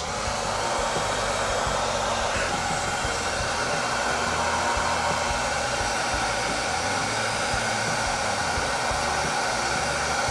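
Philips hair dryer blowing steadily at an Air Max sneaker's air-sole window, heating the clouded air bubble to clear it.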